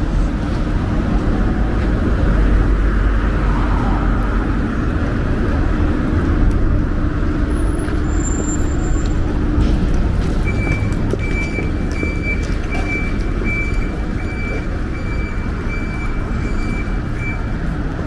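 Road traffic on a city street: a vehicle engine runs with a low rumble and a steady hum. From about ten seconds in, a high electronic beep repeats about twice a second for some seven seconds.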